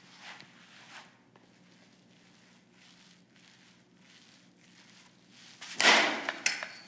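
A softball bat hits a softball off a batting tee once, about six seconds in, with a sharp, loud hit. A weaker knock follows about half a second later. Before that there is only faint shuffling against a steady low room hum.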